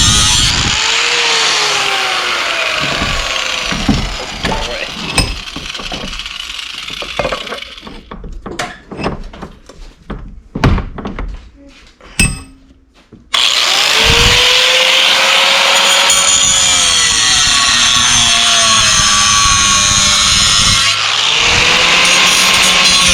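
A power tool running loudly in long stretches, its whine sliding down in pitch as it slows and rising again when it picks up speed. In the middle it stops for several seconds, leaving a run of separate knocks and clicks.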